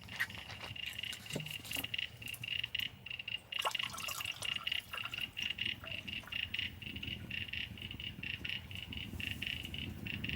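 High insect chirring in a fast, even pulsing rhythm, with scattered small sharp crackles.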